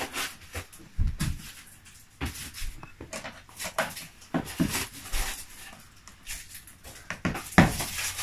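Plastic toy train track and playset pieces being handled and fitted together on carpet: scattered light clicks and knocks, with a few faint small vocal sounds from the children.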